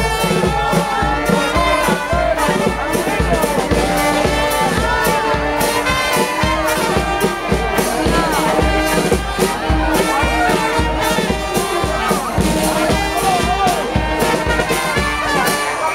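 A charanga, a Spanish festive brass band, playing live: trumpets and trombones over a steady drum beat.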